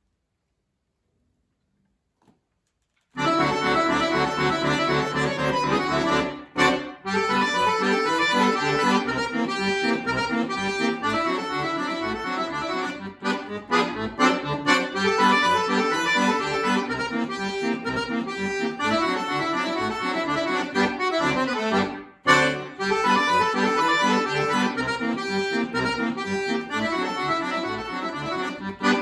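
Chromatic button accordion played solo, starting about three seconds in after a silence and carrying on with fast, busy passages, with two short breaks in the sound.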